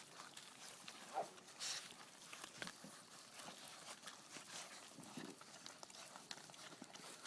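Bullmastiff puppies eating raw meat: faint scattered chewing and smacking, with an occasional short puppy noise.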